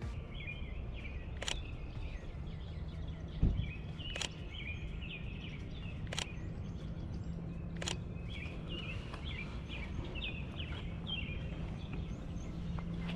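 Small songbirds chirping and twittering continuously, over a steady low hum. Four sharp clicks come a couple of seconds apart, and there is a single low thump about three and a half seconds in.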